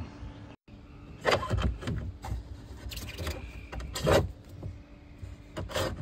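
Boat shift control cable being pulled by hand through its run in the hull: irregular rubbing and scraping with several louder knocks and clatters.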